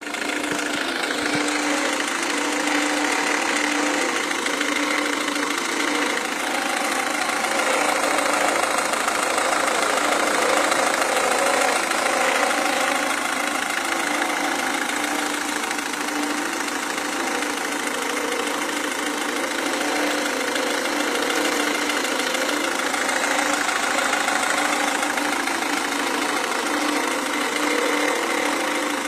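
Renault Mégane 1.5 dCi four-cylinder turbodiesel engine idling steadily, with a noise from the engine that is taken for a fault whose cause is being sought.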